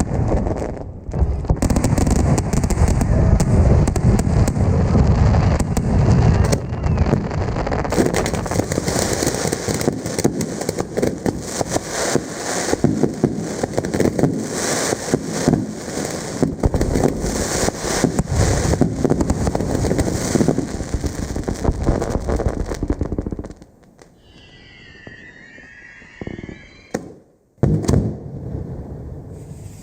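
Fireworks going off: a dense, continuous crackle of rapid bangs and pops that stops abruptly about three-quarters of the way through. After that it is much quieter, with a few faint wavering whistles and one last short burst of bangs near the end.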